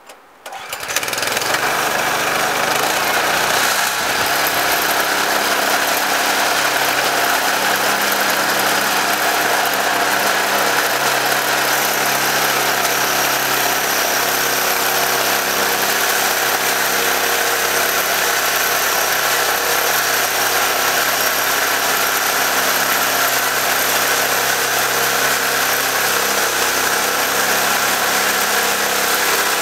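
Small gasoline engine on a bandsaw sawmill starting about a second in, then running steadily at a constant speed.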